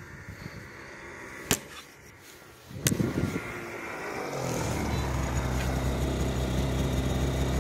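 Snowmobile engine, faint at first with a sharp click about one and a half seconds in, loud as the sled pulls up close about three seconds in, then settling to a steady idle.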